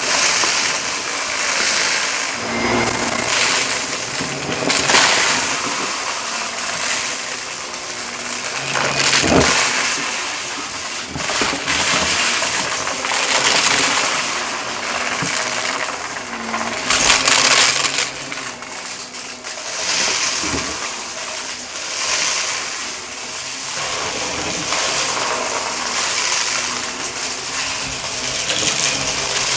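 Shark vacuum cleaner running over carpet, picking up crunchy debris that clicks and clinks as it is sucked in. The sound swells and eases every few seconds as the vacuum is pushed back and forth.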